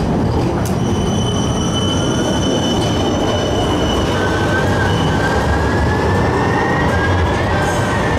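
Siemens Avanto tram-train passing close by: a steady low rumble of wheels on rails. Thin high squealing tones come in about a second in and drift slowly upward in pitch.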